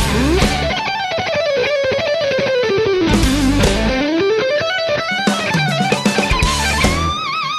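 Rock music led by an electric guitar playing a winding melody with heavy vibrato, over drums and bass.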